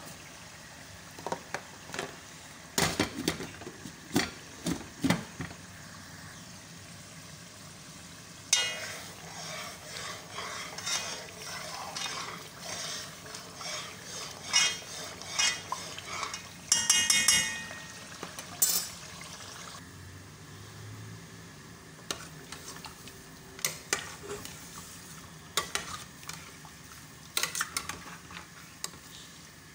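Metal pots and utensils knocking and clinking, with a long stretch of a spatula stirring and scraping through tomato paste sauce frying and sizzling in a pot.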